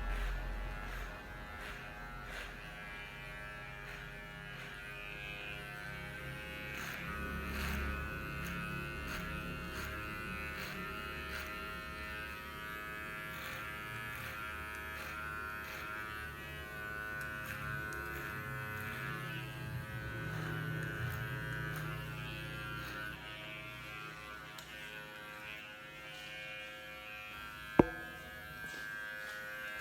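Cordless electric hair clipper running steadily with a buzzing hum, on test after its motor and battery were upgraded. A single sharp click comes near the end.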